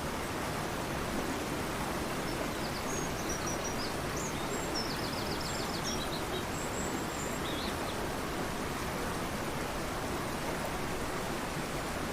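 Fast-flowing river rushing steadily, with small birds singing faintly over it from about two to eight seconds in, including a quick high trill.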